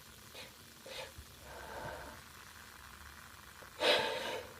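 A woman's quiet breathing and small gasping breaths between sneezes, with a sharper, breathy burst about four seconds in.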